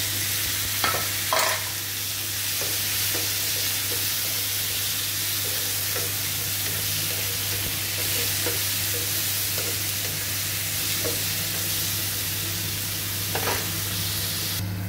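Sliced tomatoes sizzling in hot oil with fried onions and green chillies in a frying pan, stirred with a wooden spatula that scrapes against the pan a few times, near the start and again near the end.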